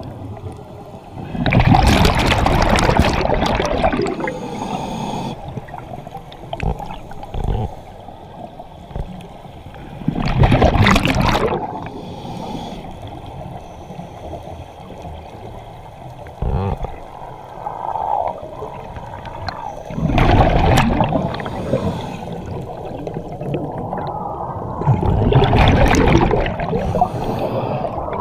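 Underwater scuba breathing heard at the camera: four long rushes of exhaled bubbles from a regulator, a few seconds to ten seconds apart, with a steady low bubbling in between.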